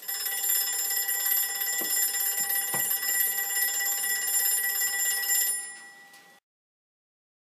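The electric bell fitted to a K'Nex grandfather clock rings loudly and without a break for about five and a half seconds, then stops and dies away.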